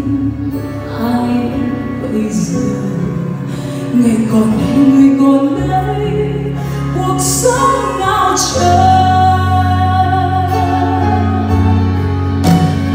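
A woman singing a Vietnamese song live into a microphone, accompanied by a live band.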